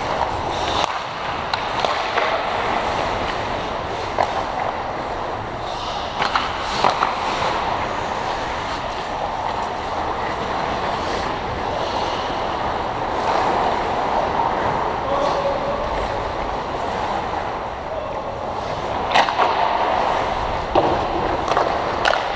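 Ice hockey skates scraping and carving across the ice of an indoor rink, with now and then a sharp clack of stick on puck or puck on boards.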